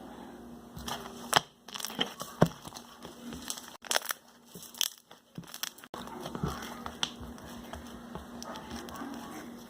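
Homemade glue-and-activator slime being stretched and pressed into bubbles, giving an irregular run of sharp clicks and pops; the slime is very clicky.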